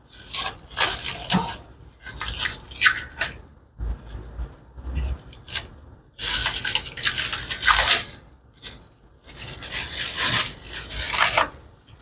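Clinging plastic wrap crinkling and rustling in irregular bursts as it is pulled and peeled off the ends of refrigerant line-set tubing.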